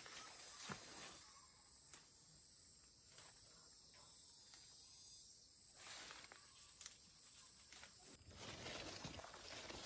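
Faint, steady high-pitched insect trilling, with scattered soft clicks and rustles. About eight seconds in, a louder rustling begins.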